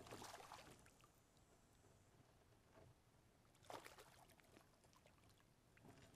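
A hooked fish splashing and thrashing at the surface of the water right beside a kayak. It comes in two brief bursts, one at the start and another about four seconds in.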